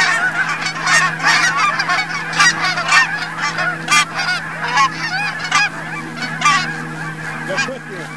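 A flock of geese honking, many calls overlapping at once, thinning out near the end.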